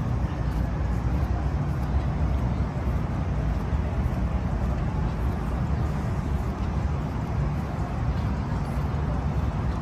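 Steady outdoor rumble of road traffic, an even low hum with no single vehicle standing out.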